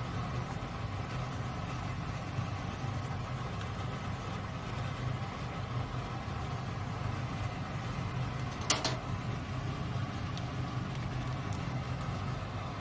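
Steady low kitchen hum while noodles, cabbage and pork are tossed with chopsticks in a frying pan. A single sharp clack comes about nine seconds in.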